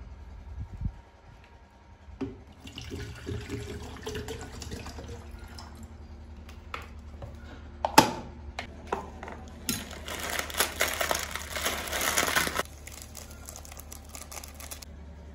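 Water poured into a stainless steel kettle for a few seconds, then the kettle's lid snapped shut with a sharp click about eight seconds in. A plastic instant-noodle packet then crinkles loudly for a few seconds, followed by lighter rustling of a foil seasoning sachet being torn open.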